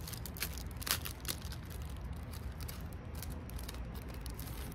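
Small clicks and rustles of a keychain being worked out of its card and plastic packaging by hand. The clicks come thickest in the first second and a half, the sharpest about a second in, and are sparser after that, over a steady low rumble.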